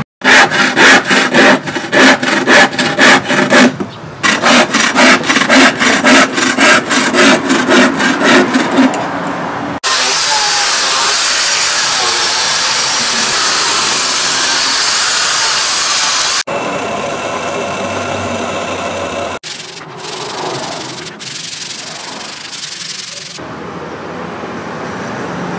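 Hand frame saw cutting a wooden board in quick, even back-and-forth strokes, about three a second. About ten seconds in this gives way to the steady hiss of an angle grinder with a sanding disc smoothing the edge of the round wooden board. The grinder's sound changes abruptly about two-thirds through and drops off, leaving quieter rubbing near the end.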